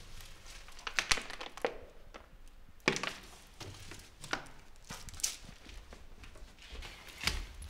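Footsteps on a debris-strewn concrete floor and handling noise from a rag being picked up: a handful of separate scuffs and knocks, roughly one a second.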